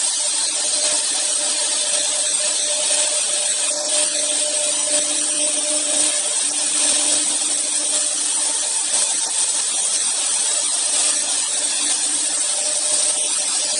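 Double-head AKM1325-2 CNC router with both spindles routing grooves into a wood board: a steady high hiss of cutting over an even machine whine.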